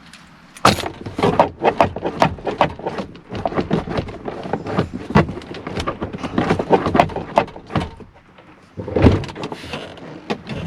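Interior door handle of a 2009 Chevrolet Silverado being worked over and over, giving rapid plastic clicks and rattles, with one heavier knock near the end. The handle is failing to release the door latch.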